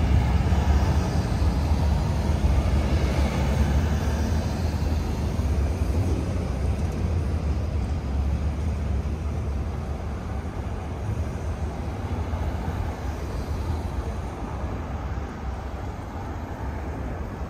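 Low rumble of road vehicles moving past, fading slowly.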